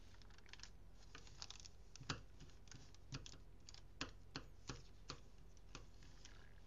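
Faint, irregular clicks and soft rustles of origami paper being folded and pressed flat with a creasing tool on a cutting mat, the sharpest clicks falling between about two and five seconds in.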